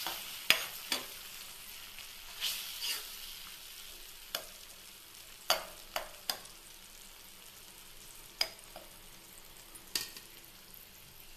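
A cooking spoon stirring thick tomato sauce in a frying pan, with about ten scattered sharp knocks and scrapes of the spoon against the pan over a faint, steady sizzle.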